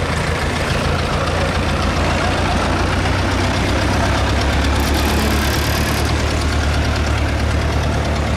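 Engine of a 1917 REO truck running as the truck drives slowly past, a steady low engine note that grows a little louder around the middle as it comes closest.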